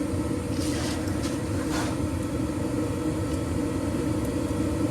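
Gas furnace draft inducer motor running with a steady hum during the start-up sequence, while the hot surface igniter heats up before the gas valve opens. Two faint brief rustles about one and two seconds in.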